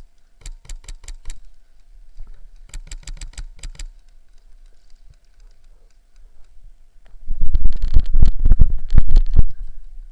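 Airsoft gun firing two quick strings of shots, about seven a second, each lasting about a second. Later comes a louder rushing, thudding noise for about two and a half seconds.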